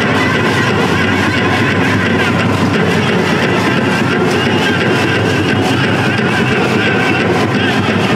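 Powwow drum group drumming and singing in a large arena. There is a steady, dense wash of sound with evenly spaced drumbeats and high, wavering voices.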